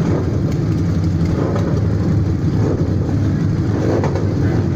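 Several Harley-Davidson V-twin engines running together on the start line, a steady low rumble with the odd small blip of throttle.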